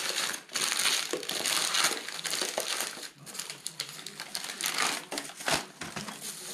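Packing paper and plastic wrap crinkling and rustling in irregular crackles as they are unwrapped by hand from a model plane's fuel tank.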